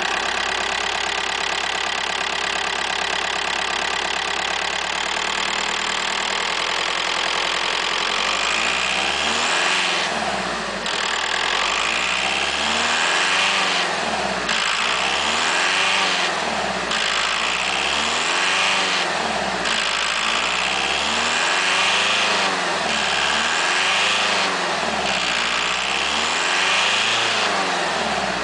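Seat Ibiza Sport TDI's 1.9 TDI four-cylinder diesel engine idling steadily, then about eight seconds in being revved up and down repeatedly, the pitch rising and falling with each blip of the throttle.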